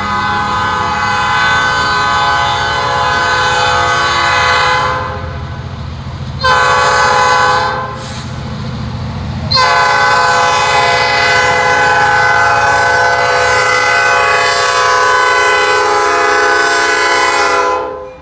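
Diesel freight locomotive horn blowing for a grade crossing in three blasts: one that ends about five seconds in, a short one, then a long blast held until the locomotive reaches the crossing. Under the horn is the low rumble of the locomotives' diesel engines working up a steep grade.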